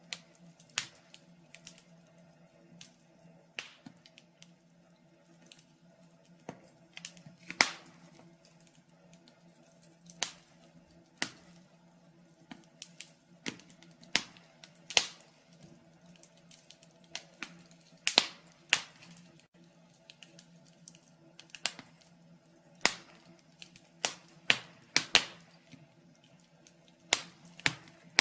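Wood fire in a fireplace crackling: irregular sharp pops and snaps, some single and some in quick clusters, over a faint steady low hum.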